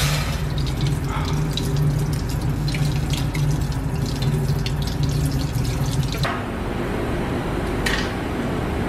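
Cold tap water running over hot enamelled beads on steel mandrels in a stainless steel sink, with a low hum and scattered sharp crackles as the hot metal and enamel are quenched. About six seconds in this cuts to the steady hiss of a small handheld gas torch flame heating a bead.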